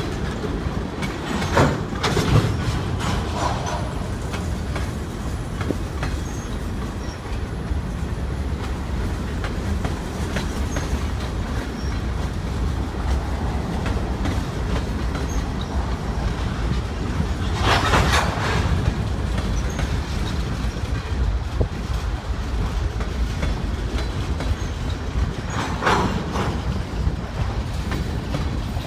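Freight train cars, boxcars and covered hoppers, rolling past at low speed: a steady rumble of steel wheels on rail with clickety-clack over the joints. Three brief, louder surges of wheel and rail noise stand out, about two seconds in, past the middle and near the end.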